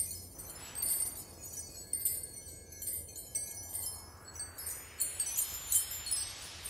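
Soft, high tinkling chimes struck every half second or so, with a faint rising whoosh over the last couple of seconds.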